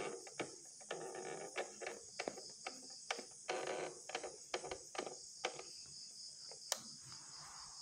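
Philips Philettina transistor radio crackling and giving brief snatches of sound as its tuning knob is turned between stations, with crickets chirping steadily in the background.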